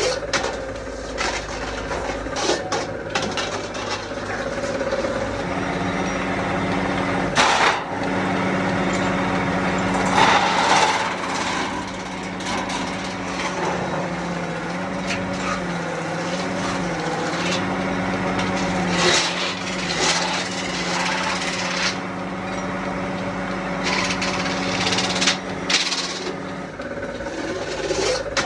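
Metalworking on a steel oil drum: a machine motor runs with a steady hum that sags in pitch a few times as it is loaded, while sharp metal knocks sound at intervals over it.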